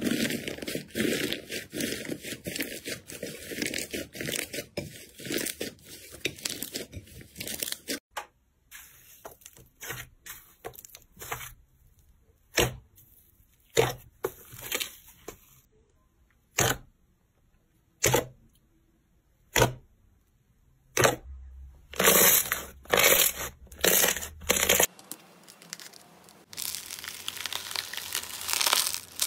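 Slime being pressed and broken by hand: its crisp crust cracks and tears in dense crackling for about eight seconds. Then come separate, widely spaced pops and clicks as a soft slime is poked, and a fine, steady crackle near the end as a beaded slime is pressed.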